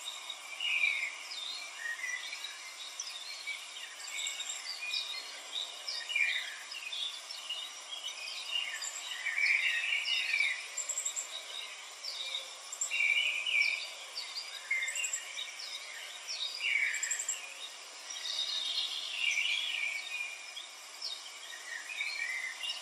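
Many small birds chirping and calling in quick, irregular short notes over a steady background hiss.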